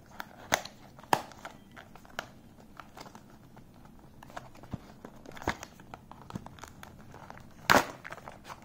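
Cardboard earphone box being opened by hand: paper rustling and crinkling as the flap and tab are worked loose, with sharp clicks scattered through and the loudest one near the end.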